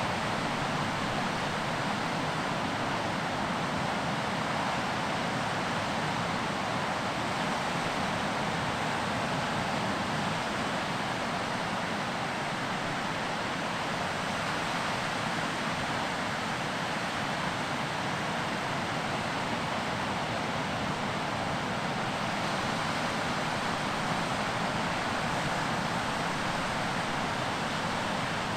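Ocean surf making a steady, even wash of noise.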